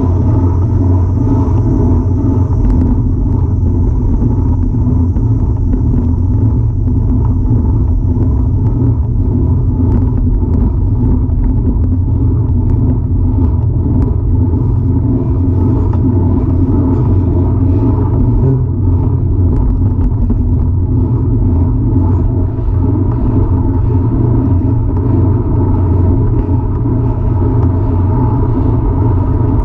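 Steady, loud rumble of wind and road noise on the microphone of a Cinelli Pista fixed-gear bicycle being ridden.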